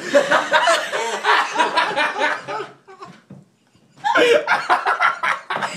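Several people laughing together, with snickers and chuckles, breaking off into a brief lull about three seconds in before the laughter picks up again.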